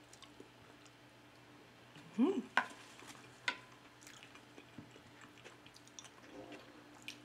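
Quiet chewing of macaroni salad, with a short hummed vocal sound about two seconds in. Right after it comes the loudest part: a metal fork clicking sharply against the plate twice as it is set down. Faint small clicks and mouth noises follow.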